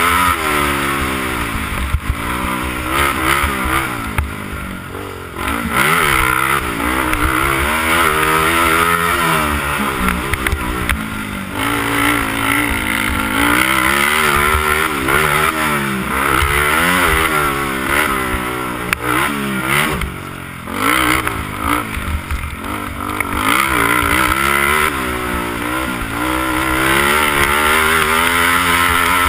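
Honda TRX300EX quad's single-cylinder four-stroke engine at race pace, its revs rising and falling over and over as the rider works the throttle and gears, dropping off briefly twice.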